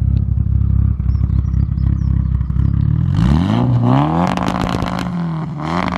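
Mitsubishi Lancer Evolution's turbocharged four-cylinder idling roughly, then revved hard about three seconds in and held on a two-step launch limiter, the exhaust crackling and popping in rapid bursts, briefly dropping and coming back up near the end.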